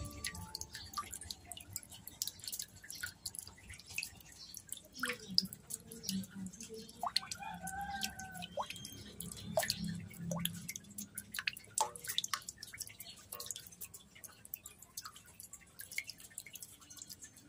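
Water in a metal basin holding live fish: scattered small drips, plinks and splashes at irregular intervals, with a brief faint whistle about seven to eight seconds in.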